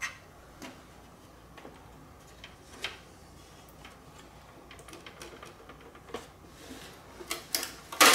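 Light, scattered clicks and knocks of the clean base's hard plastic housing being handled and worked apart, ending in a loud cluster of sharp snaps near the end as the plastic gives.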